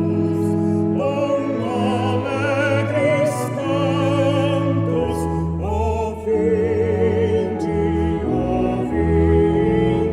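Music: a slow piece with a vibrato melody line over sustained chords and bass notes.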